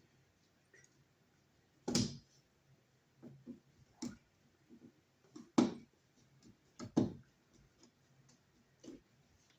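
Scattered clicks and knocks of a screwdriver and a broken wall outlet being handled while it is unscrewed from its wall box, with sharper knocks about two seconds in and twice more past the middle.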